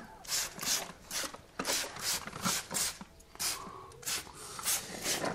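Hand trigger spray bottle misting water in a run of short hisses, about two or three a second with a brief pause about three seconds in, wetting polyurethane expanding foam in the gaps around a window frame.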